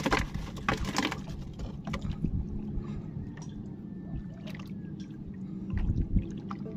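Water sloshing against a small fishing boat's hull, with a couple of sharp knocks on the boat, one at the start and one about a second in. A steady low hum runs underneath.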